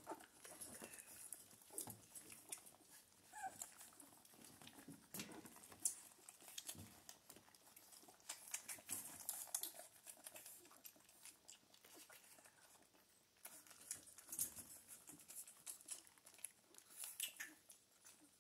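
Puppies suckling at their mother: faint scattered wet clicks and rustling, with a short squeak about three and a half seconds in.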